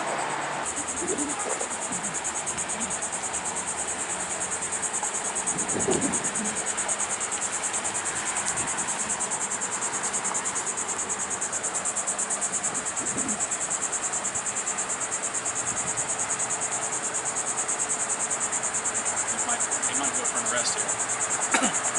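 Insects trilling outdoors: a continuous, rapidly pulsing high-pitched buzz that sets in about a second in and holds steady.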